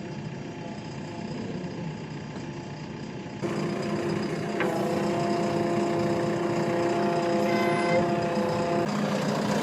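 JCB 3DX backhoe loader's diesel engine running. It gets louder about three seconds in. Shortly after, a steady whine sounds for about four seconds and stops abruptly; on this new machine the owner treats such a noise as the sign of a fault.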